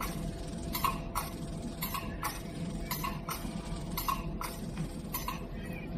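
Laser line-repair machine clicking sharply in pairs, about one pair a second, over a steady machine hum.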